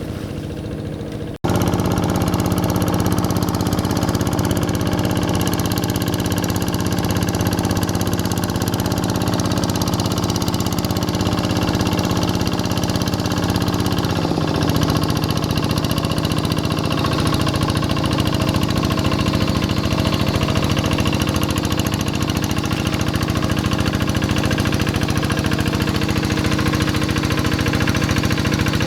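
Kubota single-cylinder diesel of a hand tractor running steadily under load while harrowing a flooded rice paddy. The sound cuts out for an instant about a second and a half in, and the engine note dips and settles at a slightly different pitch around halfway.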